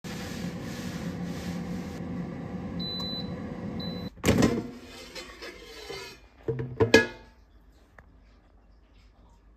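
An air fryer runs with a steady fan hum and beeps twice, high and short, at the end of its cycle. The hum stops and the basket drawer is pulled open with a loud clunk, followed by a few more knocks, the loudest one about seven seconds in.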